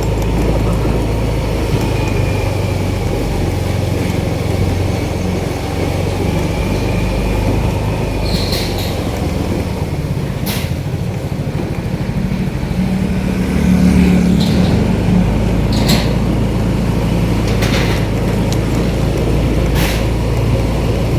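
Motorcycle engine running steadily under way, with road and wind noise and a few brief sharp clicks in the second half.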